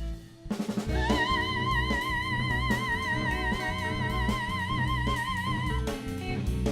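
Bollywood-noir band music: after a brief pause, a long high note with wide vibrato is held over the band from about a second in until nearly the end, when a new note begins.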